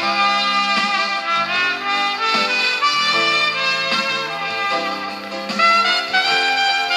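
Instrumental break in a gospel song, with no singing: a lead melody line of held notes moving from pitch to pitch over sustained chords.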